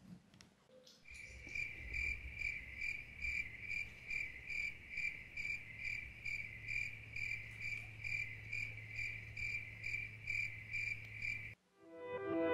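Cricket chirping: a high, steady trill pulsing about twice a second, starting about a second in and stopping just before the end, over a faint low hum.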